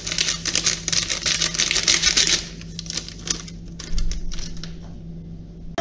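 A seasoning packet shaken over a bowl of chopped chicken, the dry spice rattling out in fast clicks for about two and a half seconds, then a few soft knocks.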